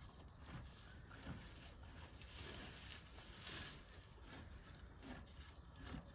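Faint, irregular crunching of a horse chewing hay, over a low background rumble.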